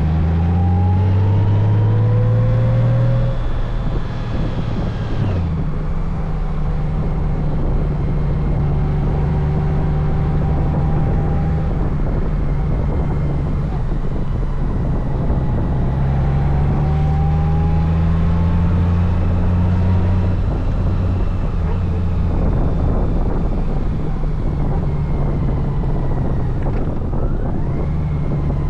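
Honda Gold Wing motorcycle engine under way, pulling up through the gears: its pitch rises for the first three seconds and again from about 16 to 20 seconds in, dropping sharply at each shift. Steady wind and road noise run beneath it.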